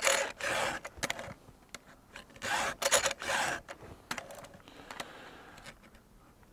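Hand-filing chainsaw chain cutters with a Stihl file guide that holds a round and a flat file together: short rasping strokes of file on steel teeth, in two quick groups about two seconds apart, fainter near the end.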